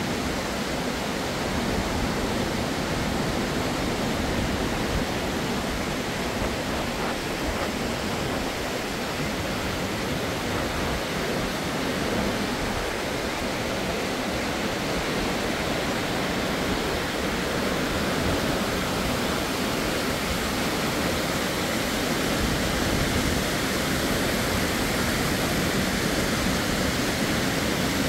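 Steady rush of a waterfall and beck tumbling over limestone rocks, a little louder in the last few seconds.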